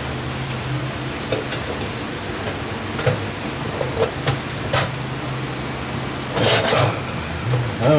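Steady hiss of rain from a storm, with scattered light clicks and knocks as the intake manifold is handled and set onto the engine. A louder scraping rustle comes about six and a half seconds in.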